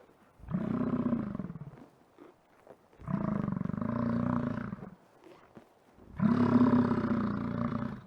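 American bison bellowing: three long, deep calls, each lasting one and a half to two seconds, separated by short pauses.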